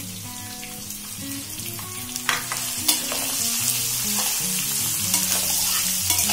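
Chopped onions sizzling in hot oil in a metal kadhai with chana dal and whole spices, stirred and scraped with a metal spatula. The sizzle grows louder about halfway in.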